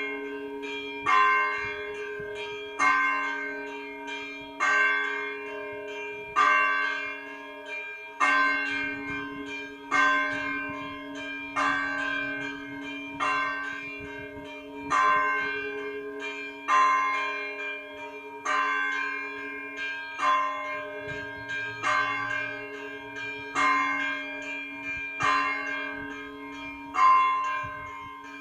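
Russian Orthodox church bells ringing to call people to a service. A heavy stroke comes about every second and three-quarters over a lingering hum, with lighter, quicker strikes between them.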